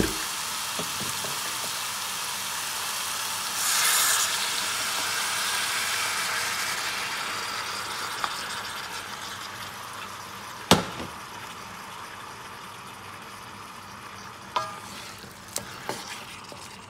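Goat meat sizzling in a hot metal pot. The sizzle flares up about four seconds in as seasoned water is poured in, then slowly dies down as the liquid cools the pot. A sharp knock a little past halfway, and near the end a few light knocks of a wooden spoon stirring against the pot.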